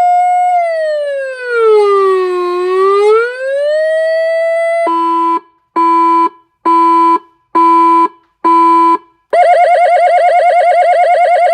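AS920 siren through a 200-watt slim horn speaker, cycling through its tones. First a steady tone that sinks slowly and rises back to pitch, then about a second in from the middle five short beeps at just under one a second, then a fast warbling tone.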